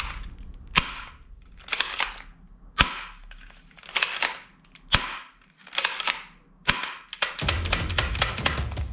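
Toy gun firing single shots, about seven roughly a second apart, each sharp crack followed by a short rattling decay. Drum-led music comes in near the end.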